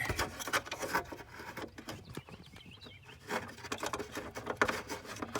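Irregular clicking, tapping and rattling of a tool and metal bolt being worked loose from the plastic trim panel under a Jeep's steering column. The busiest stretches are at the start and again from about three seconds in.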